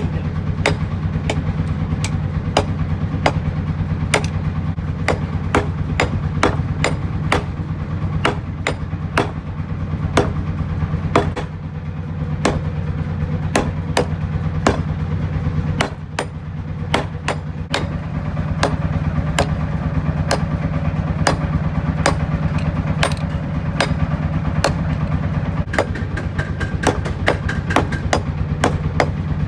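Hand hammer forging a red-hot rebar sickle blade on a small steel anvil set in a wooden stump, sharp blows at about two a second. A steady low hum runs underneath.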